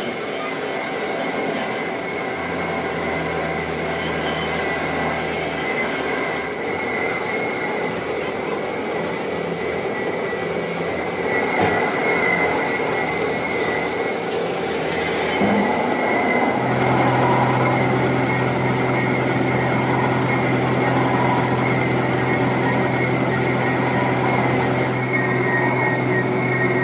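Lathe cutting a cast iron V-belt pulley, the tool squealing steadily against the metal over the machine's running hum. The low hum changes pitch about two thirds of the way through.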